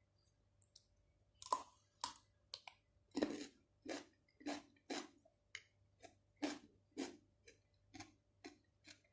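Close-miked chewing of shrimp and octopus: wet, sticky mouth sounds in a steady rhythm of about two chews a second, starting about a second and a half in.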